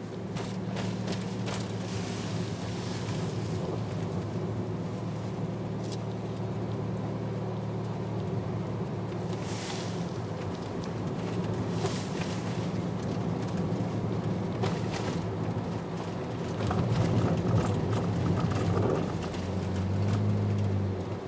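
Inside a moving car: steady engine hum and road noise while driving, with occasional light clicks. It gets louder for a couple of seconds about three quarters of the way through and again near the end.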